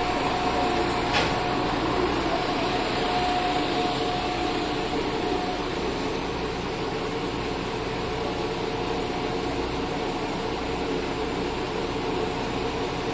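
Diesel railcar idling, a steady mechanical hum with a low rumble, with a single short click about a second in.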